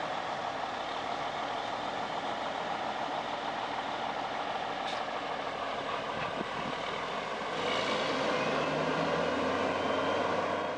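Semi truck's diesel engine running steadily. It gets louder and deeper about three-quarters of the way through.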